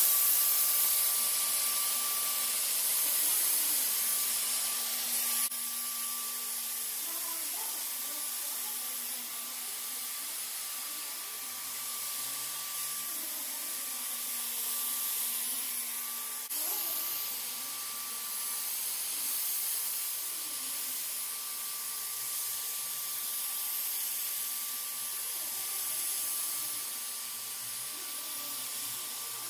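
Corded handheld electrostatic disinfectant sprayer running steadily: a constant motor whine under the hiss of fine mist.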